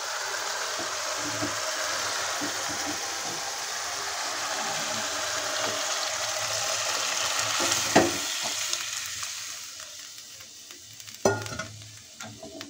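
Hot tadka of onion, tomato and green garlic sizzling steadily in a steel pan as cooked moong and masoor dal is poured in. There is a sharp metal clink about eight seconds in. After that the sizzle fades, with one more knock near the end.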